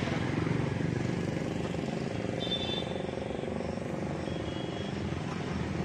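Steady low rumble of wind buffeting and handling noise on a handheld phone microphone as the camera is swung about, with two brief high chirp-like tones around the middle.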